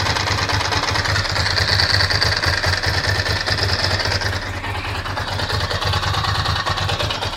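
Ducati Monster's V-twin engine running near idle, a steady pulsing beat that eases slightly about four and a half seconds in.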